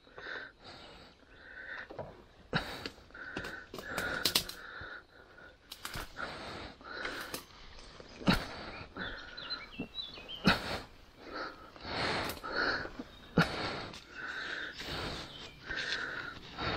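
A man's heavy, rapid breathing from exertion, about one breath a second, with scattered sharp knocks and clicks in between.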